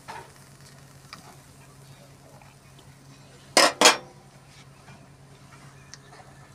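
Metal spatula striking a metal kadai twice, two sharp clinks about a quarter second apart a little over halfway through, with a few faint ticks of the utensil before, over a faint steady hum.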